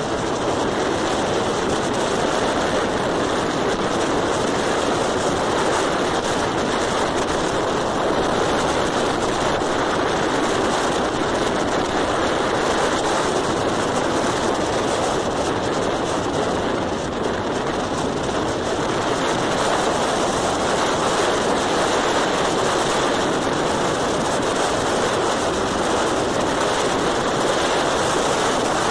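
Steady rushing road and wind noise from a vehicle driving along at speed, with no distinct engine note standing out.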